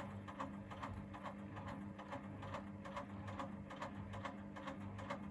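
Gorenje SensoCare washing machine with bricks in the drum: the motor hums steadily while the drum turns slowly and the load rattles and knocks in quick, irregular clicks. A low throb repeats about every two-thirds of a second as the drum goes round. The machine is trying to balance the unbalanced load before spinning.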